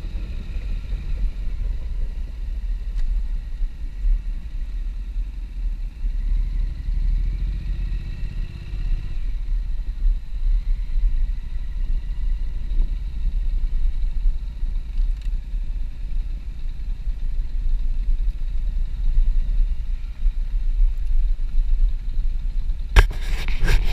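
A motorcycle ridden at road pace, heard from the bike: a steady low rumble from the 2014 Honda NC750S's parallel-twin engine, mixed with wind on the microphone. Near the end comes a short burst of loud crackling noise.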